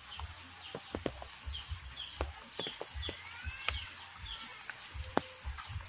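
Steady rain hiss with scattered sharp drip ticks and low thuds of footsteps. Through the middle a chicken gives short falling cheeps, about two a second.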